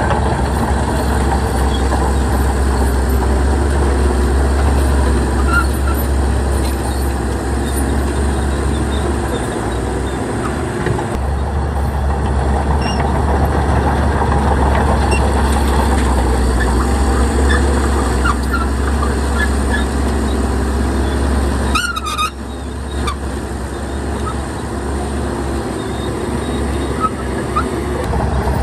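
Heavy diesel machinery engine running steadily with a low drone. About three quarters of the way through the engine noise dips briefly, with a short high squeal.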